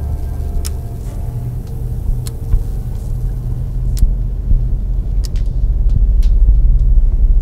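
Low rumbling drone of the film's sound design, building louder through the second half, with a few sharp clicks scattered through it.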